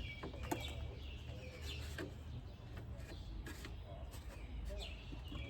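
Birds chirping intermittently in short falling chirps every second or two, over a steady low rumble with a few light clicks.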